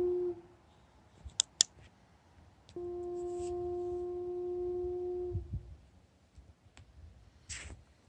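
A steady mid-pitched hum of unknown origin, the mysterious noise being tracked. It cuts off just after the start and sounds again for about two and a half seconds from about three seconds in. Two sharp clicks come about a second and a half in.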